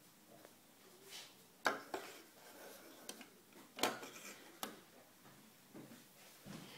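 Hard Lego plastic pieces clacking as a small Lego building is handled and its roof lifted off: a handful of sharp clacks, the loudest just under two seconds in and another near four seconds.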